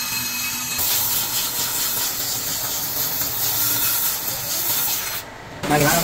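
A brake rotor spinning on a brake lathe while its face is resurfaced, giving a steady scraping hiss that turns broader about a second in. The hiss drops away briefly near the end.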